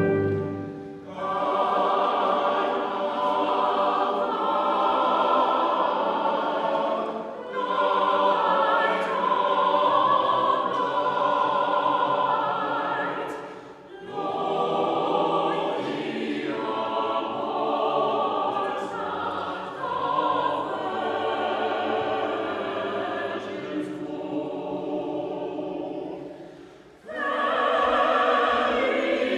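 Choir singing a classical sacred piece in long phrases, with short breaks between phrases about a second in, about halfway through, and near the end.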